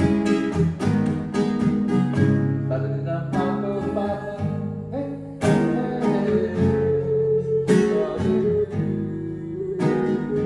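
Acoustic guitar strumming chords in an instrumental passage of a song, with strong downstrokes every couple of seconds.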